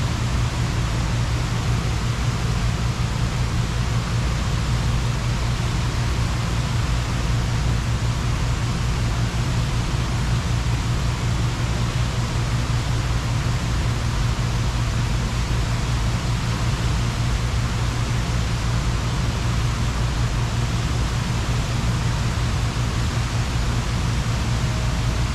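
Steady rushing and splashing of Buckingham Fountain's water jets, with a steady low rumble underneath.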